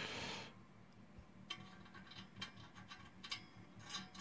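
Light clicks and taps of small metal parts as a round push button is fitted into the hole of a machined aluminium front panel and fastened from behind, after a brief scrape near the start.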